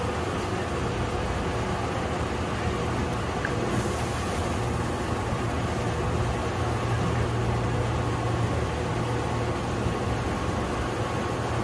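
Steady electrical hum and running noise inside the driver's cab of Tobu 8000-series electric train set 8111, standing at a platform, with a low drone and faint steady higher tones.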